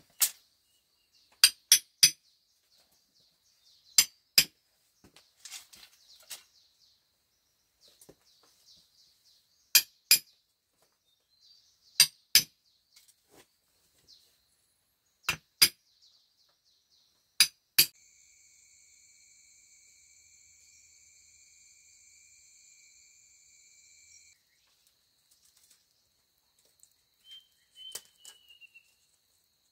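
Sharp, ringing strikes of a hand tool on bamboo, mostly in quick pairs every few seconds. A faint insect hum lies behind them. A steady high buzz runs from about two-thirds of the way in for six seconds, and a bird chirps once near the end.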